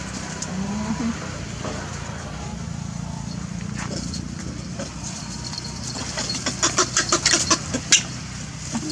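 A steady low hum, with a quick run of about eight sharp clicks or rattles over the last two seconds or so.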